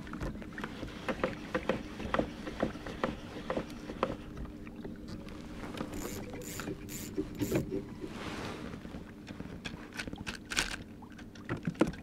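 Fishing tackle being handled on a kayak: a string of clicks, knocks and ratchet-like clicking as rods, reels and the downrigger are reset for trolling, with sharper clicks about six to eight seconds in, over a steady low hum.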